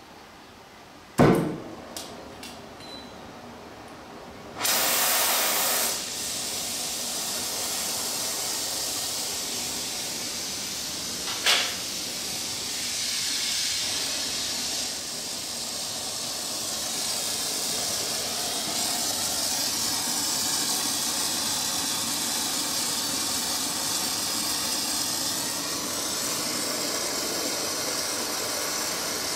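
Oxy-fuel torch lit with a sharp pop about a second in, a short louder blast of gas hiss around five seconds, then the flame hissing steadily as it heats the hood linkage; one more brief pop near twelve seconds.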